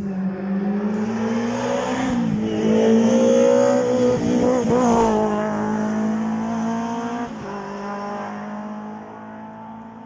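Historic rally car engine revving hard along the stage, its pitch dropping at gear changes about two, five and seven seconds in, then fading as the car draws away.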